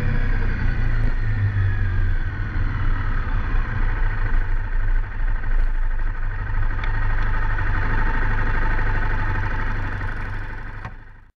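Honda CRF250 Rally's single-cylinder engine running steadily, under a strong low rumble; it fades out near the end.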